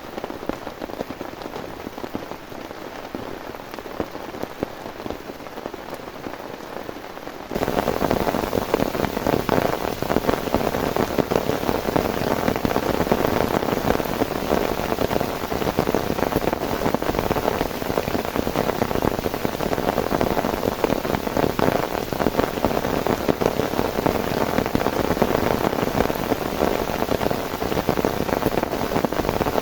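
Heavy rain falling in a dense, steady patter; about seven and a half seconds in it suddenly gets much louder and stays that way.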